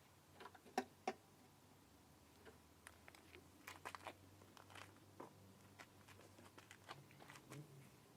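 Quiet handling noises of small parts being worked by hand: scattered light clicks and taps, with two sharper clicks about a second in and a cluster near the middle.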